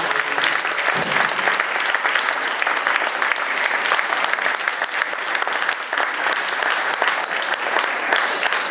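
Audience applauding: many hands clapping steadily and densely without a break.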